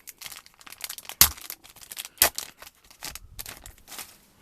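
Foil wrapper of a Yu-Gi-Oh booster pack being torn open and crinkled: a dense run of crackles, with two sharp louder ones about a second and two seconds in.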